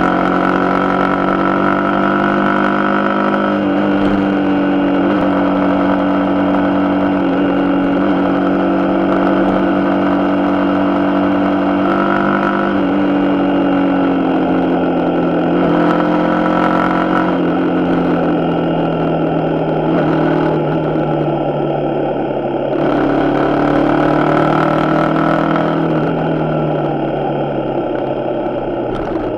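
Suzuki Gixxer 150's single-cylinder four-stroke engine running under way, its note rising and dropping in pitch several times with throttle and gear changes, and falling steadily near the end as the bike slows. Road and wind noise run beneath it.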